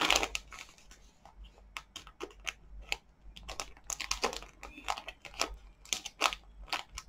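A plastic postal mailer being handled and worked open by hand: irregular crinkles, taps and clicks.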